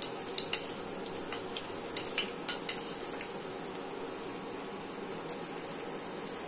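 Chopped garlic sizzling in hot vegetable oil in a stainless steel kadhai: a steady hiss with frequent small sharp pops and crackles, thicker in the first few seconds and again near the end.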